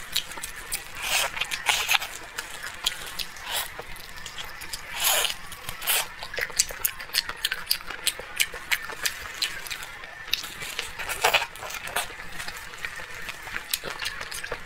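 A person chewing and eating braised pork off the bone: many irregular wet mouth clicks and smacks, with a few louder ones scattered through.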